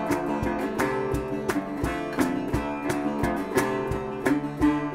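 Background music: a strummed acoustic-guitar tune in a country style, with a steady beat.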